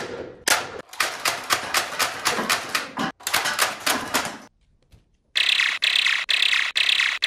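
Toy foam-dart blaster firing in a fast rattling burst, about six shots a second, for about four seconds. It stops, and after a short pause a different steady hissing buzz starts, pulsing two or three times a second.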